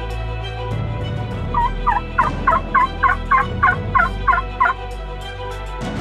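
Merriam's wild turkey calling: a run of about ten evenly spaced, quick notes over roughly three seconds, with steady background music underneath.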